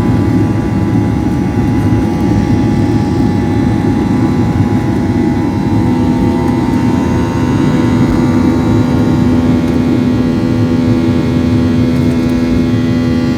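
Airliner's jet engines running at takeoff power: a loud, steady noise with several steady whining tones, and a low hum that grows stronger about halfway through.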